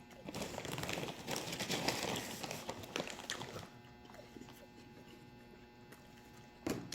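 Close-up chewing of a ham, cheese and mayo sandwich on bread, a wet crackling mouth noise for about three and a half seconds, then quieter chewing with a few small clicks.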